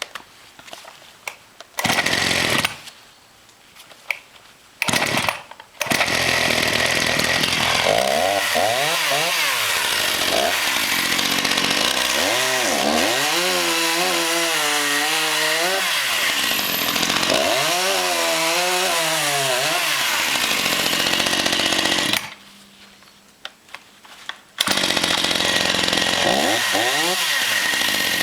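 Husqvarna 242 XPG two-stroke chainsaw run at high revs. There are two short bursts near the start, then long stretches at full speed where the engine note dips and rises again several times. It drops back briefly about three-quarters of the way through, then goes back to high revs.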